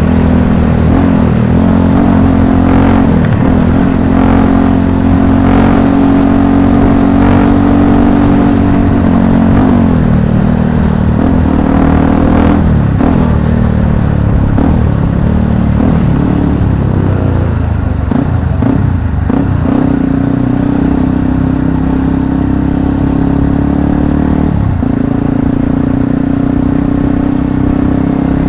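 Single-cylinder Yamaha WR155R motorcycle engine running while riding, picked up by an action camera's built-in microphone. The engine note holds steady, then dips and climbs again several times as the revs change.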